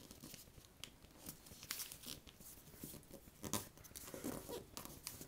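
Sheet of paper being folded and creased by hand: soft crinkling and rustling with scattered short crackles as the folds are pressed flat.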